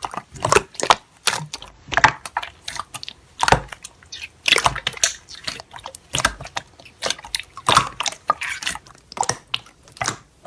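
Irregular wet smacking and clicking sounds, several a second, like a mouth or tongue working in liquid.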